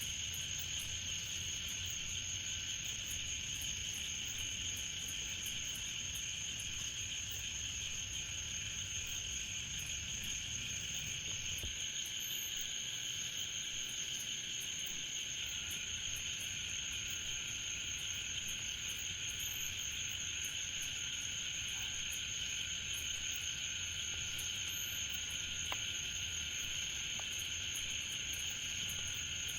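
Steady chorus of crickets and other insects, a continuous high-pitched trilling that doesn't change.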